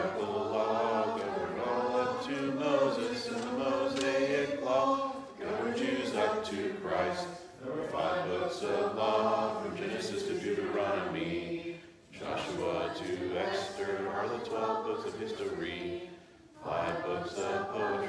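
A group of children and adults reciting memorized Bible text together in unison, in a chant-like rhythm, in phrases broken by short pauses.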